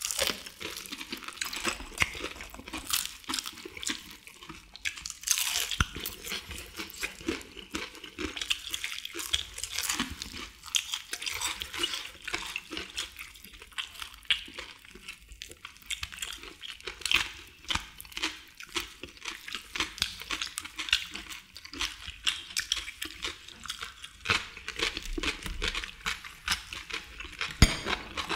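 Crisp crunching and chewing of battered fried chicken with perilla leaves, close-miked, with several people biting in a dense stream of sharp crackles. A louder knock sounds near the end.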